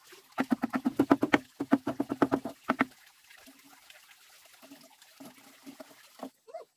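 Rooster clucking in a quick run of calls for about two and a half seconds, then fainter, scattered clucks.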